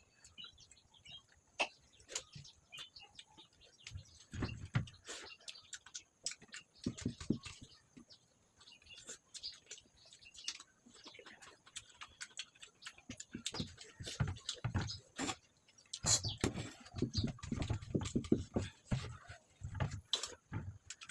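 Close-up mouth sounds of eating fish fry and rice: irregular wet chewing and lip-smacking clicks. Denser, heavier chewing comes a few seconds in, about seven seconds in, and over a longer stretch near the end.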